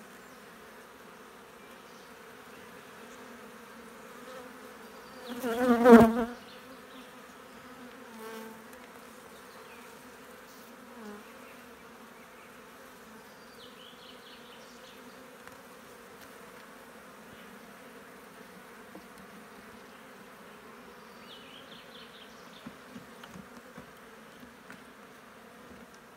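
Honeybees humming steadily from an opened hive as comb frames are lifted. About six seconds in, a bee flies close past, a loud buzz that wavers in pitch for about a second.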